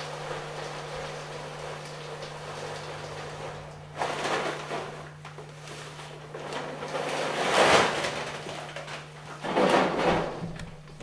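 Lump charcoal pouring from a plastic bag through a nozzle into a barrel reactor: a steady rattling trickle, with louder surges of clattering about four seconds in and around eight seconds, and another short clatter near the end.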